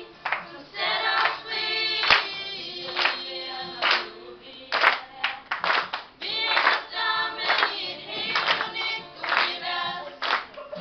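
A group of young voices singing a song together in Danish, with a steady beat about once a second.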